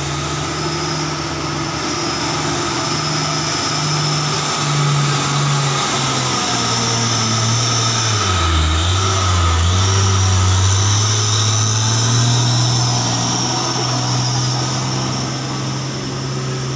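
An orange box truck's diesel engine pulling hard up a steep incline. It grows louder as the truck passes close by about halfway through. Its pitch drops for a moment there, then holds steady as the truck moves on.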